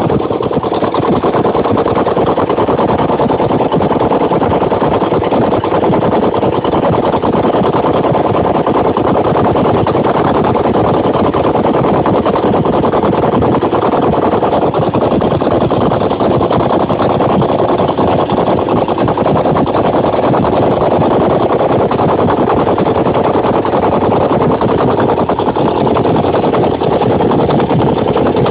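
Ural motorcycle's flat-twin engine running steadily on its first run after a major rebuild, with a new crankshaft, camshaft, timing gears, main bearings and pistons and freshly bored cylinders.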